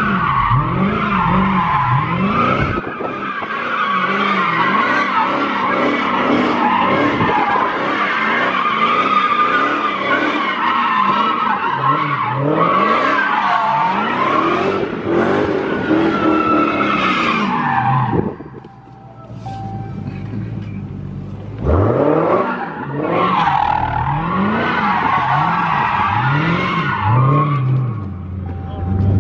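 Dodge Challenger Hellcat's supercharged V8 revving up and down over and over while its rear tyres squeal through long slides with traction control switched off. The squealing eases off for a few seconds about two-thirds of the way through, then the revving and sliding start again.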